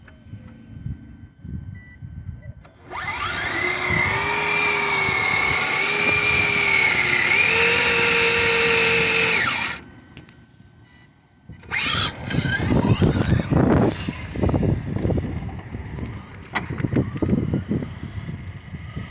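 Electric motor of a Traxxas Slash 2WD RC drag truck whining loudly under throttle for about seven seconds, its pitch climbing in steps, then cutting off. A couple of seconds later comes irregular low rumbling and thumps.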